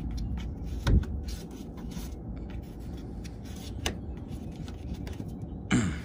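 Hand handling a plastic dryer vent hood: rubbing and scraping, with a knock about a second in and a sharp click near four seconds, over a low steady rumble.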